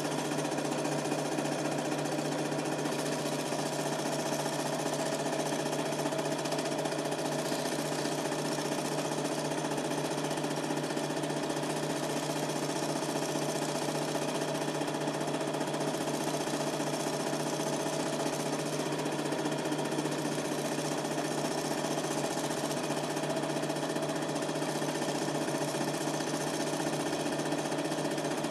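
Super 8 film projector running steadily: an even mechanical clatter from its motor and film transport, picked up in the room by a camcorder's microphone.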